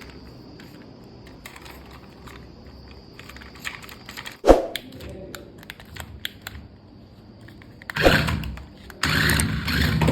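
Scattered light clicks and taps of a plastic toy RC car and its packaging being handled, with one sharp thud about halfway through. Louder, noisier handling sounds come in over the last two seconds.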